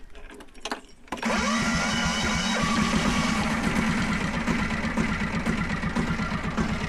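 UHI10P mini excavator's diesel engine catching suddenly about a second in, then running steadily with a rapid, even beat. It is firing and running on the newly fitted replacement battery.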